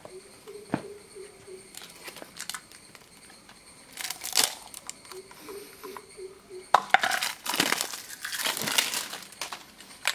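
Cosmos Paints aerosol spray paint can hissing in short bursts, the longest and loudest run about seven to nine seconds in, after a light knock near the start.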